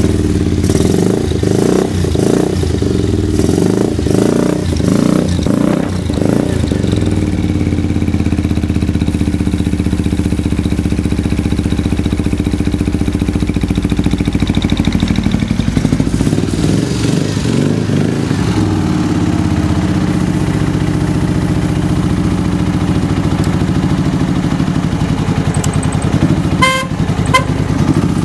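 Honda CX400 Euro's V-twin engine breathing through a WR'S aftermarket slip-on muffler. It is blipped up and down several times, then settles to a steady idle with one more rev in the middle. A few short beeps sound near the end.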